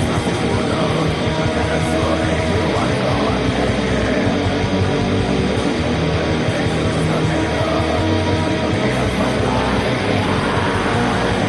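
Black metal music: a dense, loud wall of distorted electric guitar that stays at an even loudness without a break.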